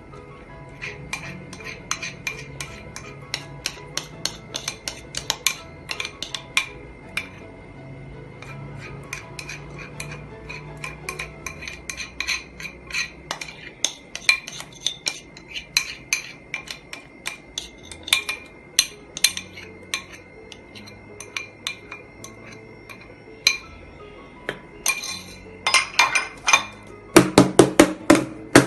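Metal utensil clinking and scraping against a bowl and cake mold as thick cake batter is spooned in, in irregular light knocks. Near the end comes a quick run of louder knocks.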